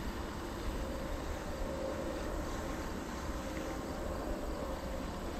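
Steady outdoor ambience: a continuous low rumble with a faint steady hum in the middle, and no sudden sounds.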